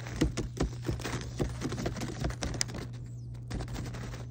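A sun conure crunching potato chips and rustling the foil chip bag. It makes quick, irregular crackles that are dense for the first two and a half seconds, then thin out.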